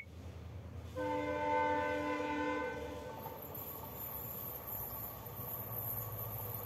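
Distant horn of an approaching WDP4D diesel locomotive: one long blast of several tones together, starting about a second in and lasting about two seconds. It is followed by the low, steady rumble of the locomotive's engine as the train comes closer.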